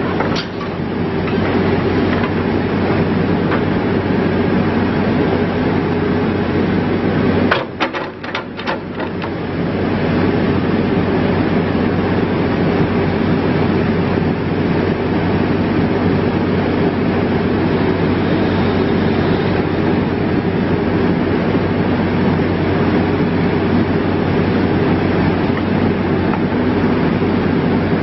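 Case 580N backhoe loader's diesel engine running steadily. About seven and a half seconds in, a quick cluster of metallic clanks comes as the engine sound briefly dips, then the steady running resumes.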